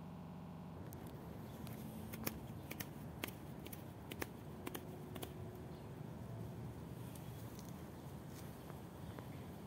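Dry fallen leaves crackling in scattered sharp ticks as they are stepped on, over a quiet outdoor background. A steady low hum cuts off about a second in.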